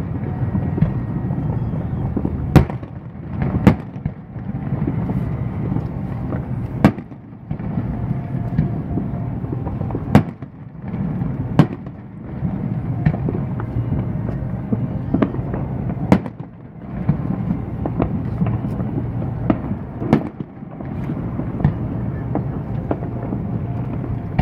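Aerial fireworks show: a dozen or so sharp bangs of shells bursting, a second to a few seconds apart, over a steady low background rumble.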